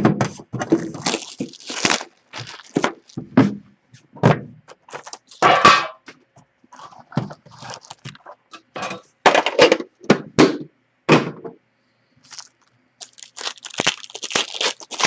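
A hockey card tin and its foil card packs being handled and opened: a string of irregular knocks, clicks and thuds, with a run of crinkling and tearing of pack wrappers near the end.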